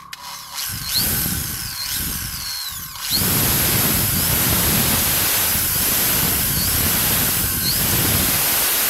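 Xpart 350 W corded electric drill running, unevenly and quieter at first, then jumping about three seconds in to a steady full-speed run with a constant high whine.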